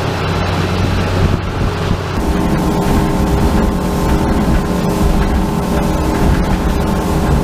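Suzuki outboard motor running at speed as the boat planes, with rushing wake water and wind on the microphone. The engine tone shifts about two seconds in.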